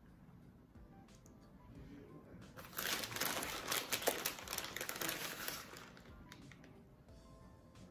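Plastic bag of shredded mozzarella crinkling as it is handled, loudest for about three seconds in the middle.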